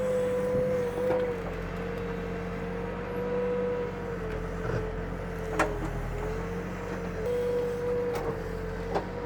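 Backhoe's diesel engine running steadily under load, with a steady, slightly wavering whine over a low rumble. About halfway through comes a short knock, followed by two more near the end.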